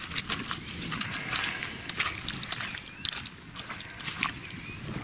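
A gloved hand scooping and squeezing wet mud out of a rusted steel helmet: irregular squelching and sloshing with many small wet crackles.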